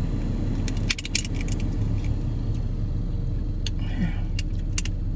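Sharp clicks and crackles of crab and shrimp shells being handled and cracked while eating a seafood boil, in two clusters about a second in and again near four seconds, over a steady low hum.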